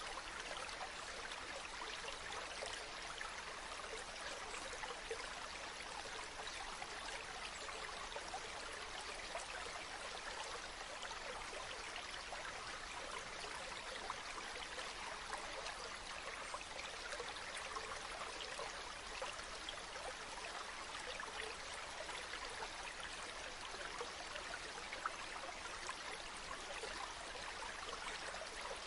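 Mountain stream running over rocks: a steady rush of water with fine splashing and trickling throughout.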